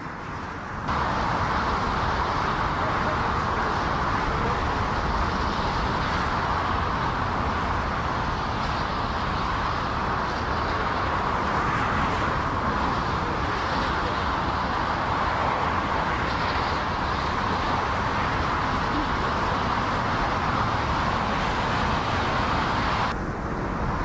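Boeing 777-200F freighter's GE90 jet engines running as it rolls along a wet runway: a steady, even rushing noise with a low rumble underneath. The sound starts abruptly about a second in and stops just before the end.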